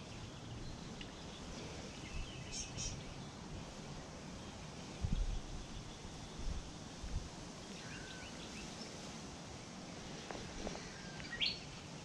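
Quiet wetland ambience: a steady faint hiss with a few scattered short bird chirps, one about three seconds in and a quick rising call near the end. A few soft low thumps come in the middle.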